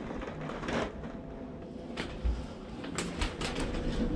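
Elevator cab moving between floors: a steady low rumble, with a few sharp clicks and knocks scattered through it.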